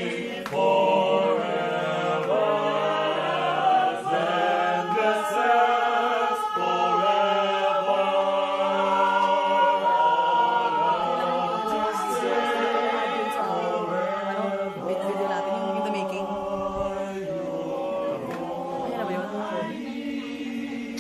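Small mixed choir of men and women singing a slow song in harmony, with an electronic keyboard accompanying, the voices easing slightly near the end.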